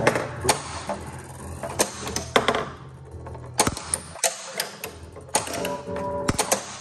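Bally The Addams Family Gold pinball machine in play: irregular sharp clacks of the flippers firing and the steel ball striking targets and solenoid-driven kickers, over the machine's steady electronic game tones, which drop out for a moment midway.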